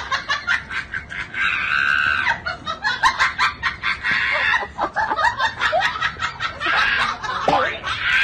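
A person laughing in quick high-pitched giggles, with a few longer high squeals.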